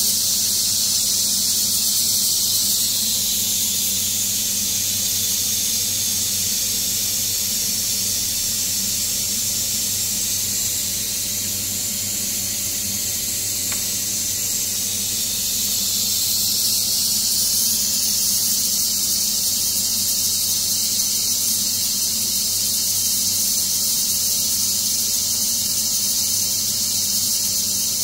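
Ninja Foodi MAX 15-in-1 multi-cooker venting steam in a steady, high-pitched hiss: a quick release of pressure at the end of pressure cooking. The hiss eases a little about halfway through and then picks up again.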